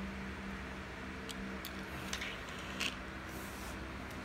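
A handful of light clicks and taps from a small Majorette 1/64 diecast toy car being handled and set down on a wooden table, the loudest about three seconds in, over a steady low hum.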